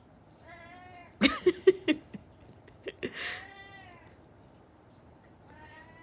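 A cat meowing at a person's sneezes, three drawn-out meows in all. Loud sneeze-like bursts come about a second in and again near three seconds, the cat answering each in complaint.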